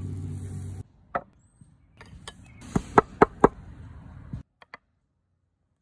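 Marble pestle pounding and grinding seasoning in a marble mortar: scattered knocks, then four loud sharp strikes about a quarter second apart, a little under halfway through. Before that, a steady sound cuts off suddenly under a second in.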